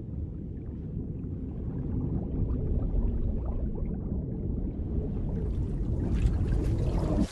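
Muffled underwater rumble of churning water, deep and steady, growing brighter over the last couple of seconds.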